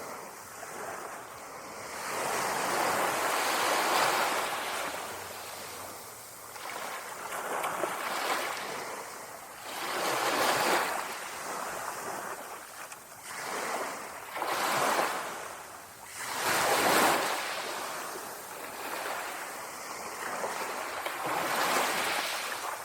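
Small sea waves lapping on the shore, each surging in and drawing back every two to three seconds as a rising and falling hiss.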